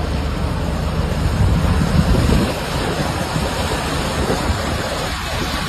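Drilling machine running with a steady low rumble, louder for a moment about a second and a half in, with wind buffeting the microphone.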